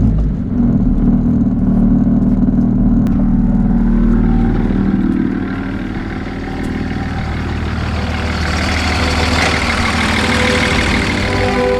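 Derbi supermoto motorcycle engine running, low and steady for the first few seconds, then rising in pitch and loudness from about eight seconds in as it is revved or ridden harder.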